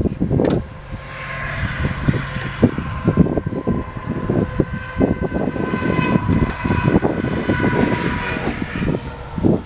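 A distant engine droning with a steady whine that comes in about a second in and fades near the end, over wind rumbling on the microphone and scattered light knocks.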